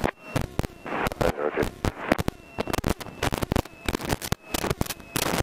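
Dense, irregular crackling and clicking static on a light aircraft's headset intercom and radio feed.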